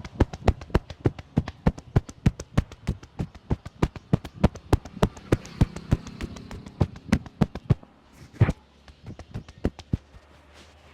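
A barber's hands slapping and clapping on a client in fast percussive champi massage strokes, about four to five sharp slaps a second. The run stops about eight seconds in, followed by one loud slap and a few softer ones.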